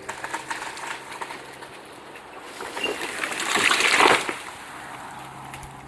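A felled tree going over: crackling and snapping, then a loud rushing crash of limbs and leaves about three and a half seconds in that dies away within a second, over a steady low hum.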